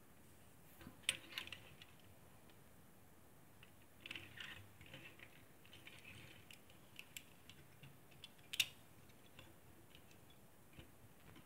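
Small clicks and light rattles of a die-cast Majorette Jeep Cherokee ambulance toy being handled on a wooden table. There is a sharp click about a second in, a cluster of small clicks between about 4 and 6 seconds, and the loudest click near 8.5 seconds as the toy's rear doors are opened.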